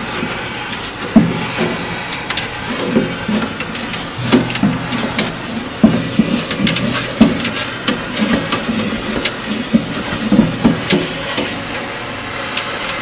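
Industrial vacuum hose sucking coolant and sludge out of a CNC machine's coolant sump: a hissing, slurping suction over a steady motor hum, broken by irregular knocks and clatters.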